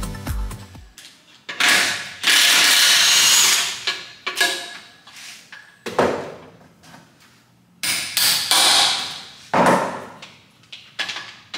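Teardown of a 4L60E automatic transmission on the bench: a power tool runs in one loud, even burst of about a second and a half a couple of seconds in, with metal knocks and clanks of tools and parts before and after, and another loud clatter about eight seconds in.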